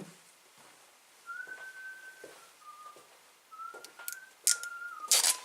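A person whistling a few short, steady notes, with sharp clicks and a burst of handling noise near the end.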